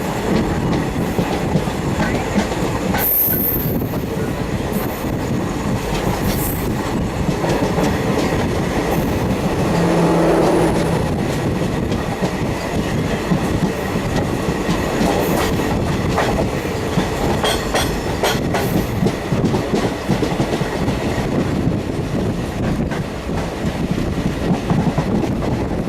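Express train coaches rolling past, wheels clattering over rail joints with repeated sharp clicks and a few high wheel squeals. A brief low steady tone is heard about ten seconds in.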